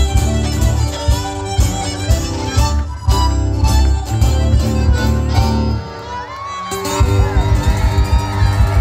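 Live Irish traditional music on fiddle, accordion and acoustic guitar, with the tune ending about six seconds in. The crowd then cheers, whoops and claps.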